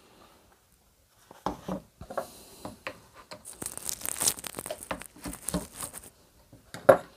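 Hands handling the plastic parts of a chainsaw's recoil starter: scattered clicks and knocks, a stretch of scraping rustle in the middle, and a sharper knock near the end.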